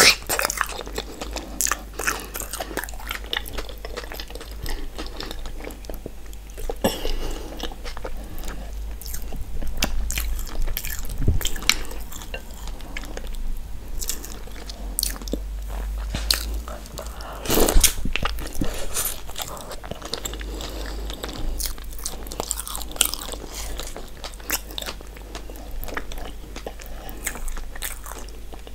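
Close-miked eating sounds from a seafood boil of mussels, potatoes, eggs and corn in sauce: biting and chewing with many short wet smacks and clicks, the loudest about 18 seconds in.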